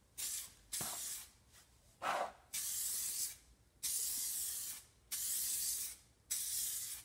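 Aerosol can of touch-up paint spraying in seven short hissing bursts, each under a second, with brief pauses between, as a first coat goes on.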